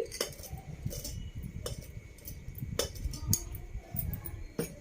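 A handful of light clinks and taps of kitchen utensils against a tiffin box and dishes, with low handling rumble, as chopped onion is added to the bhelpuri mix.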